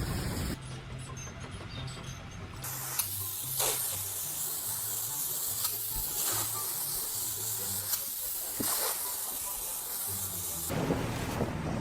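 A steady hissing, like a jet of spray or steam, from about three seconds in until near the end, over background music with a stepping bass line.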